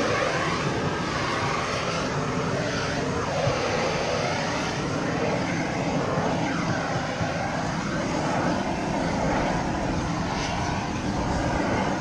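Propane shrink-wrap heat gun running steadily with a continuous rushing roar of flame, heat-welding the shrink-wrap film's bottom edge.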